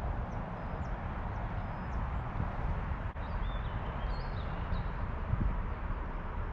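Steady rushing noise of flowing river water, with a few faint, high bird chirps.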